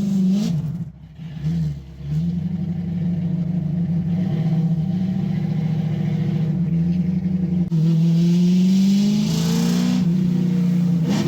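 1965 Mustang engine through its Black Widow exhaust while driving. The revs climb and drop away about a second in, then come back and run steadily. The engine note rises again from about eight to ten seconds in before easing back.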